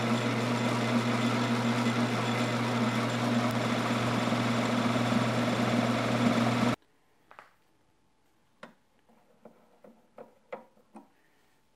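Small metal lathe running steadily with a constant low hum, then cutting off suddenly about seven seconds in. A few light clicks and knocks of tools and parts being handled follow.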